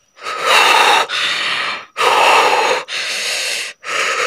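A person breathing hard and fast: a loud, noisy breath about every second, with short breaks between, five in all.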